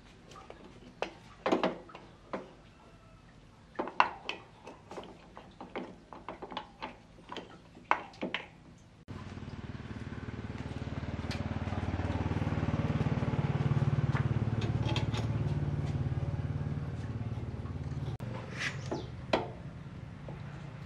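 Sharp metallic clicks and knocks of parts and tools being handled, then a motorcycle engine starts running suddenly about nine seconds in. It swells and fades for about nine seconds and cuts off abruptly, followed by a few more clicks.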